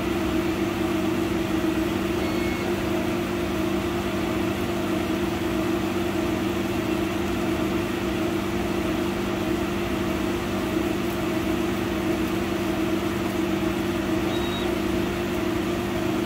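100-watt laser cutter running as it cuts a sheet of MDF: a steady, even machine hum that holds unchanged throughout.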